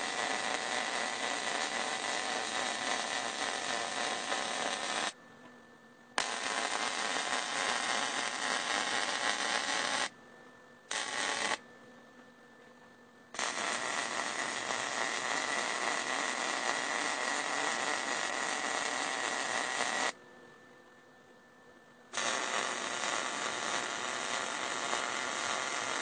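MIG welding arc running a bead down a sheet-steel seam: a steady even hiss in stretches of several seconds. The arc stops and restarts four times, about five, ten, twelve and twenty seconds in, the longest run lasting about seven seconds.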